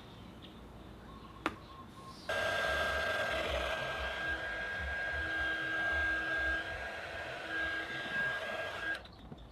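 A single sharp click, then a mini 300 W heat gun switches on about two seconds in and runs steadily, its fan blowing with a thin high whine, and cuts off suddenly near the end. It is warming a vinyl warning sticker's adhesive so the sticker peels off without damaging the paint.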